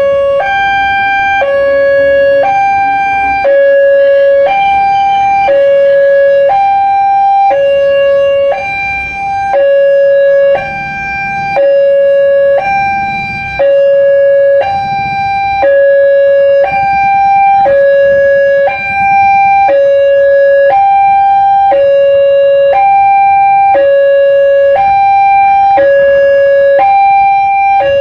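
Railway level-crossing warning siren sounding a two-tone hi-lo alarm, switching between a lower and a higher tone about every second.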